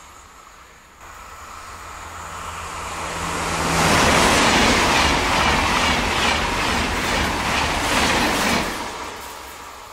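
A TGV high-speed train passing at speed. The sound swells up from about a second in into a loud rush of air and wheels, with a regular clatter as each car's bogies go by. It drops away quickly near the end.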